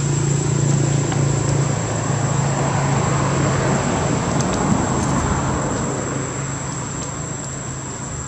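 Motor vehicle noise: a steady low engine hum under a wash of road noise that swells a few seconds in and then slowly eases off.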